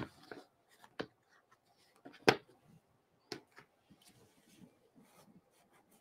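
A rubber stamp on a clear acrylic block being handled and wiped clean: a few light clicks and taps, the sharpest about two seconds in, with faint rubbing between.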